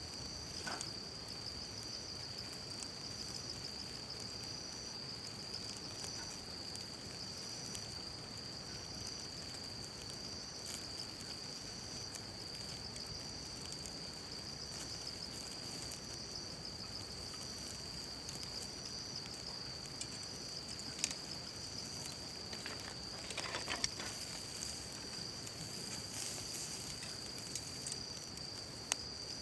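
Insects trilling steadily at a high pitch, with a second insect chirp repeating about once a second above it. There are a few faint clicks and taps in the second half.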